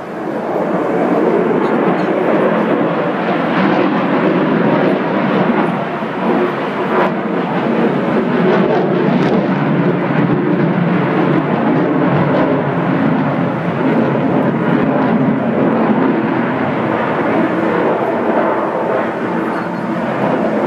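Sukhoi Su-35 fighter's twin turbofan engines heard from the ground as the jet flies its display: a steady, loud jet noise.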